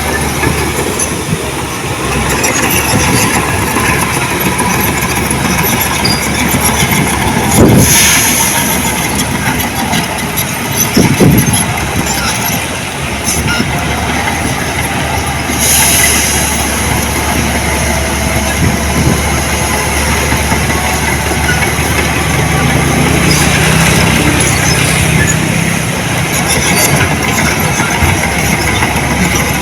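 Heavy earthmoving machinery running steadily under load, with a few brief louder clanks and squeals about a third and half of the way through.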